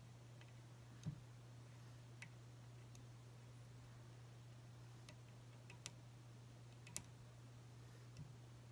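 Near silence over a steady low hum, broken by a few faint, sharp ticks and clicks from hand-tying a crappie jig at a tying vise, the loudest about a second in and near seven seconds.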